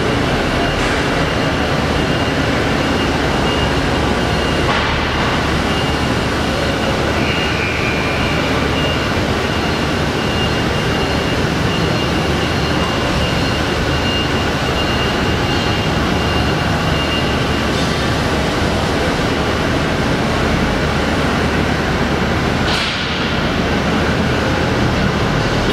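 Bullard Model 75 Cutmaster vertical turret lathe running, a steady, even machine noise with a faint high whine through the middle.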